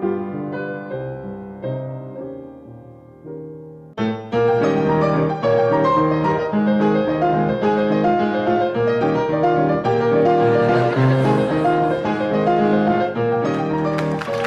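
Solo piano accompaniment in silent-film style: a few soft, spaced notes, then about four seconds in a loud, busy passage of quick notes begins.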